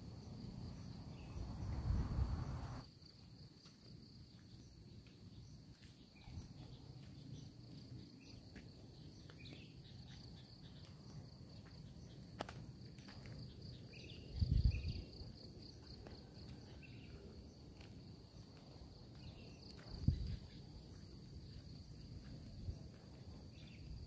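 Insects, likely crickets, chirping steadily in a high continuous trill. Three brief low rumbles break through: one near the start, one midway and one near the end.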